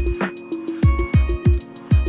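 Electronic dance music with deep kick drums, fast hi-hats and steady synth tones.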